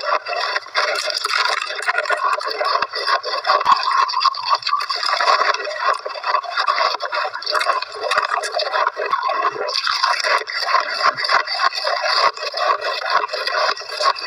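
Close-miked crunching of shaved ice being bitten and chewed: a dense, unbroken run of fine crackles.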